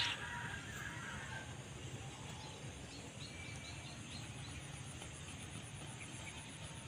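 A horse whinnies once, right at the start, a call that fades away over about a second and a half; after it there is only faint outdoor background.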